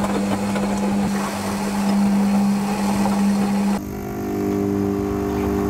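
Front-loading washing machine running a short wash, its motor humming steadily as the drum turns. About two-thirds of the way in, the sound changes abruptly to a quieter, steady electrical hum made of several tones.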